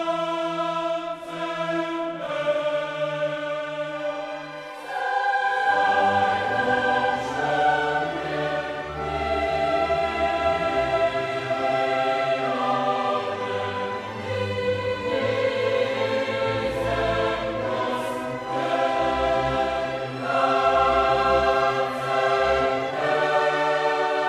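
Background music: slow music of long held chords that change every second or two, fuller in the bass from about five seconds in.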